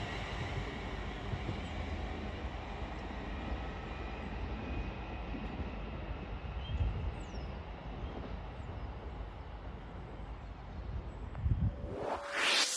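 Train running with a steady low rumble and faint, slowly shifting whining tones. A rising whoosh cuts it off near the end.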